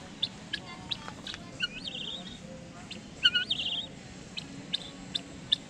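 Birds calling: short high chirps repeated a few times a second, with two louder warbling calls, one about two seconds in and a louder one about three seconds in.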